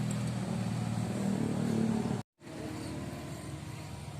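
A motor vehicle engine running steadily, rising a little in pitch just before the sound cuts out completely for a moment about two seconds in; afterwards a rougher, quieter low rumble.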